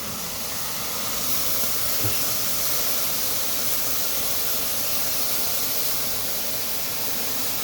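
Brussels sprouts sizzling in a hot pan with brown sugar and a little water: a steady hiss of steam, slightly brighter after about a second. A light knock about two seconds in.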